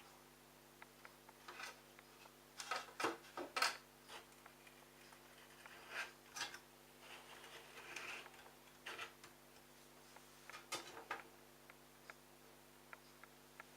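Scattered light clicks and knocks of hands working at the plastic pump filter cap and housing of a Bosch washing machine, loudest about three seconds in, over a faint steady hum.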